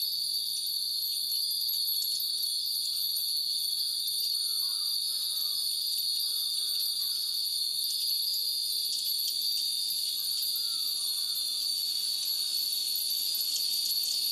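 Japanese wind bells (fūrin), hung by the hundred, tinkling lightly in the breeze. The tinkles come more often in the second half. Under them runs a steady, high-pitched insect drone.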